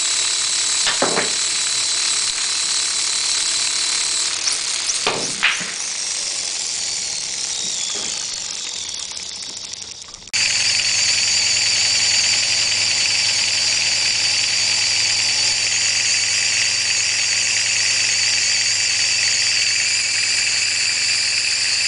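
VEX robotics motor driving a train of plastic spur gears and a wheeled axle, giving a high mechanical whine. The whine sinks in pitch and fades as the drive slows, with a couple of knocks in the first few seconds. About ten seconds in it cuts back in suddenly, louder, and holds a steady whine.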